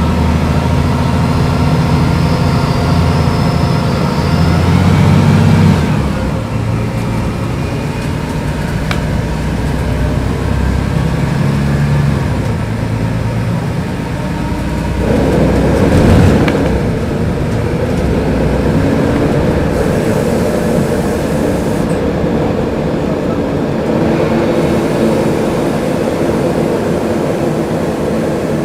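Diesel engine of a Mercedes-Benz O500UDA articulated bus running under way, its note shifting several times as it pulls. There is a louder surge about sixteen seconds in.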